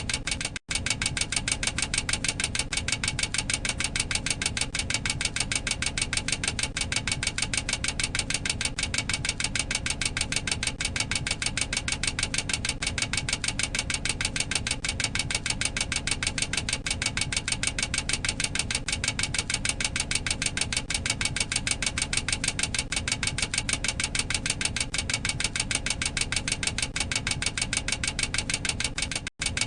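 Boeing 737-800 cockpit overspeed warning clacker sounding: a rapid, steady mechanical clacking that repeats without a break in rhythm, the aural warning that airspeed has exceeded the maximum operating limit. It cuts out for an instant twice, once shortly after it starts and once near the end.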